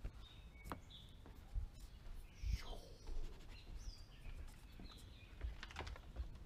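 Small birds chirping, short high falling calls heard several times, over low bumps and knocks from the drone-mounted camera being handled and carried. The loudest bump comes about two and a half seconds in.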